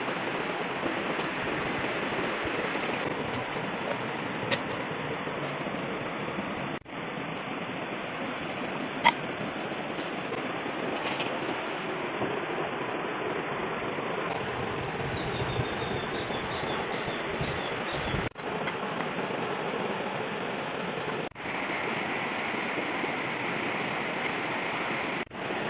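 Steady rushing of flowing river water, with a few faint clicks of kitchen utensils now and then.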